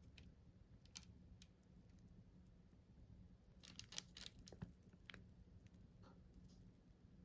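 Faint, scattered light clicks and short rustles of food preparation by hand, with one sharper tick about four seconds in.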